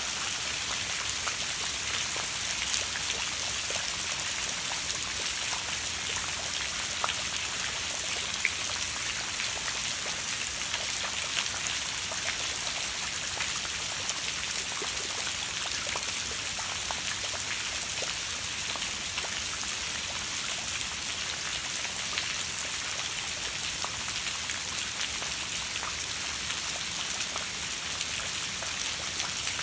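Steady rain falling: a dense, even hiss of drops with many single drops ticking through it.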